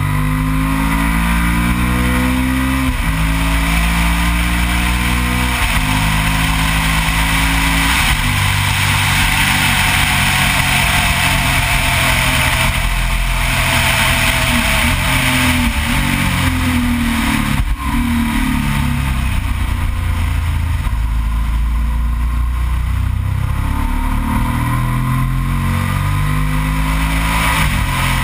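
Yamaha TDM 900's parallel-twin engine under way, pitch climbing and then dropping back with upshifts twice in the first six seconds, falling off around the middle and rising again as it accelerates out of the bends, with wind rush on the microphone.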